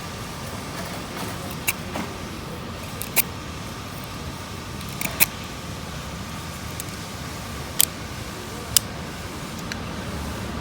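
A handful of sharp metallic clicks, spaced a second or two apart, from a small folding pocket knife with a ball-bearing pivot being handled, opened and closed, over a steady background hum.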